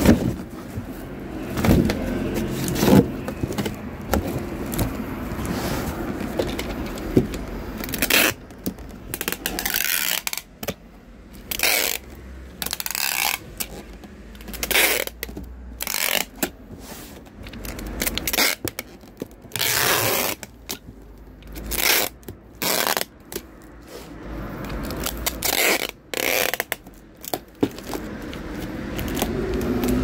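Repeated short scraping strokes, a dozen or more coming one after another from about eight seconds in, over a faint steady low hum.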